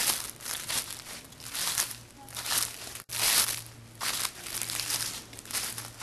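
Footsteps crunching through a thick layer of dry fallen maple leaves, at a steady walking pace of a little more than one step a second.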